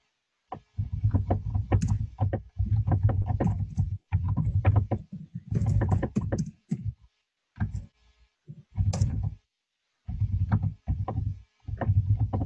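Typing on a computer keyboard in several irregular runs with short pauses, the key clicks carried on dull low thumps.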